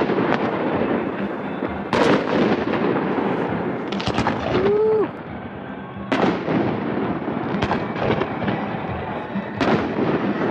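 Aerial fireworks exploding, about six loud booms roughly every one and a half to two seconds, each trailing off in a long rolling echo across the lake.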